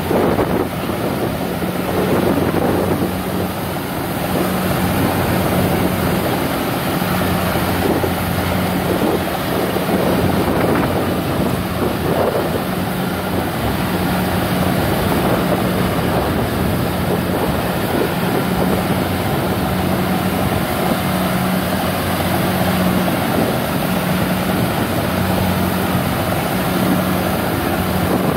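Kubota DC70 rice combine harvester running steadily under load while cutting and threshing rice. Its engine holds a steady low drone over an even wash of machine noise.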